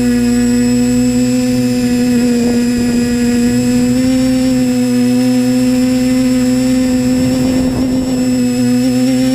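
Disco Pro drone's electric motors and propellers heard from the onboard camera: a steady, loud whine that rises slightly in pitch toward the end. Brief rushes of wind noise come about two and a half seconds in and again near eight seconds.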